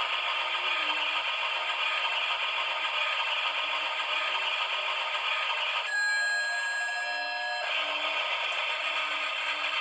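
Flying Scotsman novelty train clock playing its train sound effect through a small speaker while the miniature train circles its track: a steady running noise, broken about six seconds in by a held, whistle-like tone lasting about a second and a half.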